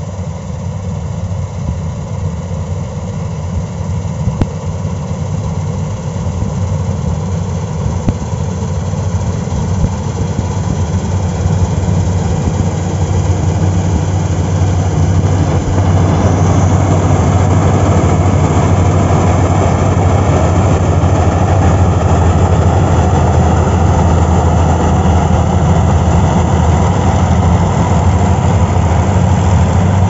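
Kartaar 4000 combine harvester running while harvesting: a steady engine drone with the machinery running under it. About halfway through it grows louder and fuller as the machine comes close.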